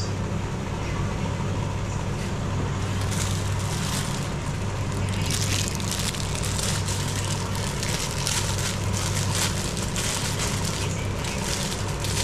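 Packaging being handled: a run of dense crackling and crinkling that starts about three seconds in, over a steady low hum.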